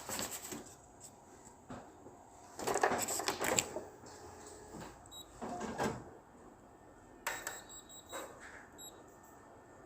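Photocopier being handled before copying: a few separate clunks and rustles, the loudest cluster a few seconds in, with faint short beeps.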